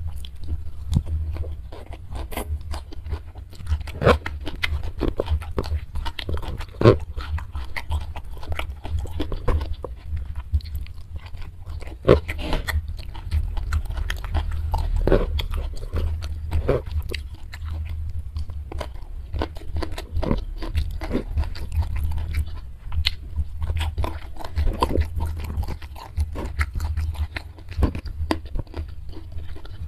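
Close-miked chewing and crunching of food eaten by hand, with sharp crunches of raw long beans and wet mouth clicks coming irregularly throughout.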